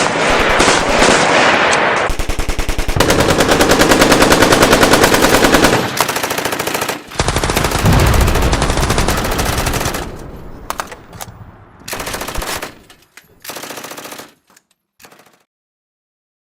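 Combat sound effect of rapid machine-gun fire in long dense bursts, with a deep boom about eight seconds in, then scattered shots that thin out and die away.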